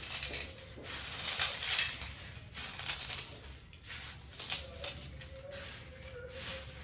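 Dry, crisp rustling and crunching in irregular bursts: puffed rice and crunchy snacks being handled and stirred for jhal muri.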